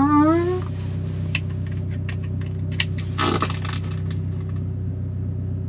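Car engine idling steadily, heard inside the cabin, with scattered light clicks and a short rasping noise about three seconds in. A rising fart sound effect from the car stereo trails off in the first half-second.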